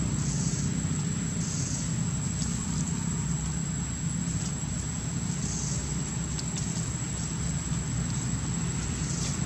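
A steady low engine hum with a constant high-pitched whine above it and a few brief high chirps.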